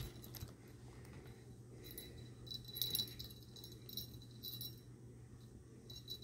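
A small metal bell on a string-and-pom-pom cat toy jingling in irregular bursts as a kitten bats and bites at it.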